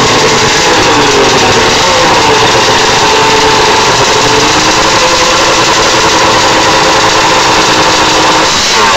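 Yamaha SRX 700 snowmobile's three-cylinder two-stroke engine idling, its note wavering slightly and shifting in pitch near the end.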